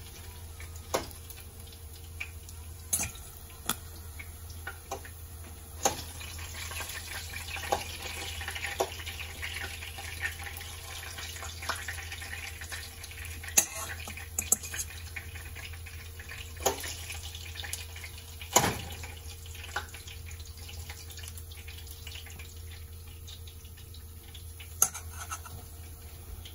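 Metal fork clinking now and then against a stainless steel bowl as fried chicken pieces are moved about, over a steady low hum. A soft hiss rises in the middle.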